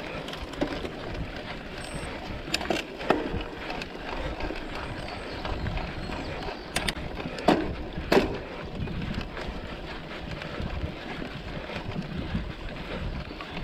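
Mountain bike riding noise picked up by a camera on the rider: tyres rolling over a rough dirt trail and the bike rattling, with a few sharp knocks around three, seven and eight seconds in.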